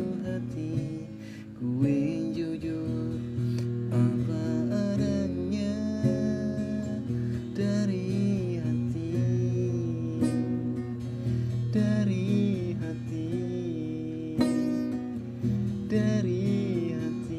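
Music: an acoustic guitar strummed and plucked, accompanying an Indonesian pop song, with a wavering melody line carried over it.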